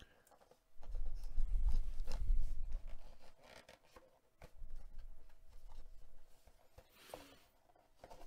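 A cardboard trading-card box being picked up and handled on a table, with rubbing and scraping of cardboard and low bumps for about two seconds starting a second in.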